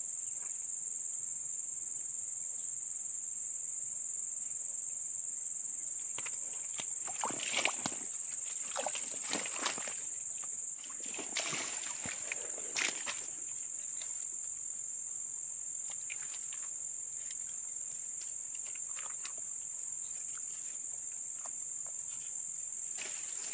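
Steady high-pitched drone of insects, with a cluster of short rustling and handling noises in the middle.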